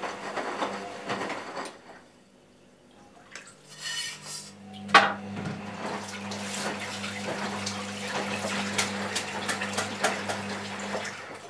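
Dishes and cutlery clattering, then a front-loading washing machine starting: a sharp click about five seconds in, followed by a steady low hum with water running in and light clicking, which stops shortly before the end.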